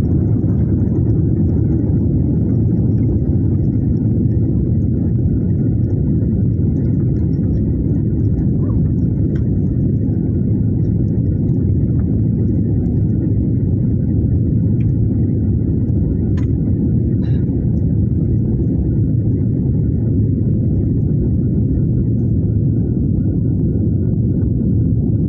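Airliner's jet engines at takeoff thrust, heard from inside the cabin: a steady low roar as the plane lifts off and climbs.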